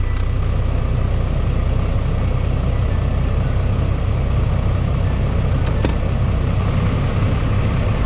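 Toyota Land Cruiser 61's turbo-diesel engine idling steadily.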